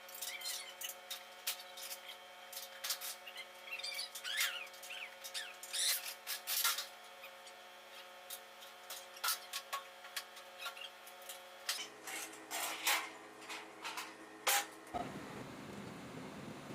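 Scattered light clicks and knocks of hand tools on metal, with a few brief squeaks, as an engine is being bolted into place in the car.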